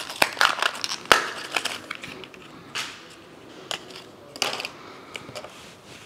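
A new NVMe SSD's retail packaging being opened by hand, crinkling and cracking in scattered bursts, with one sharp crack about a second in.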